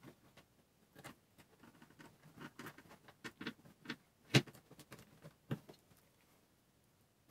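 Faint, irregular clicks and taps of small plastic gimbal parts and a controller board being handled and fitted together on a wooden tabletop, with one sharper click about four and a half seconds in.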